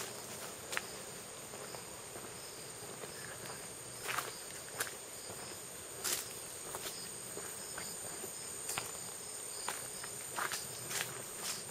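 Insects chirring steadily in a high, continuous drone with a faint regular pulsing beneath it, and footsteps on a paved path landing irregularly, about one every second or so.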